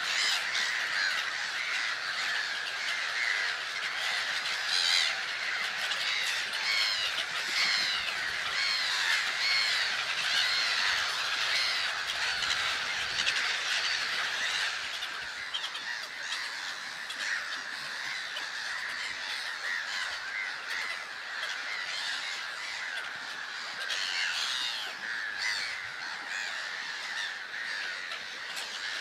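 A large breeding colony of grey-headed gulls calling: many harsh, crow-like calls overlap into a dense, continuous chorus that eases off a little about halfway through.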